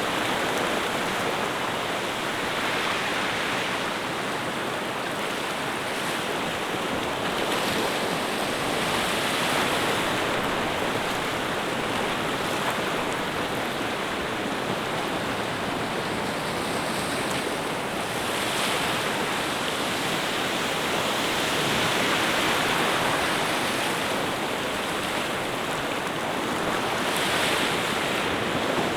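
Ocean waves washing in, a steady rushing hiss that swells and falls back every few seconds.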